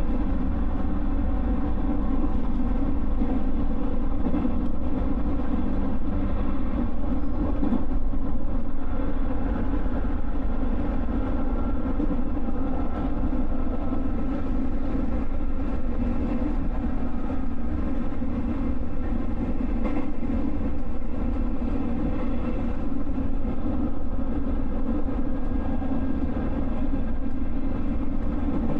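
JR West 221 series electric train running between stations: a steady rumble of wheels on rail with a faint whine from the running gear that rises slightly in pitch around the middle.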